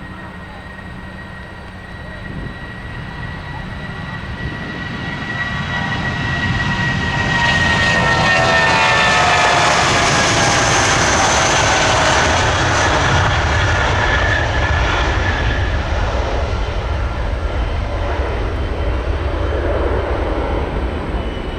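Airbus A319 twin-jet airliner at takeoff power. The engine noise builds over several seconds, its whine falling in pitch as the jet passes, then stays as a loud steady rumble.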